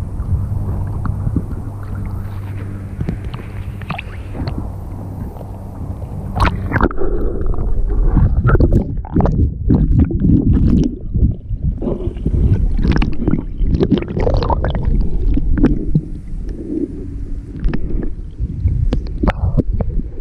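Muffled water sound from a camera held underwater: a steady low hum at first, then from about seven seconds in, irregular heavy sloshing and gurgling as the camera moves through the water.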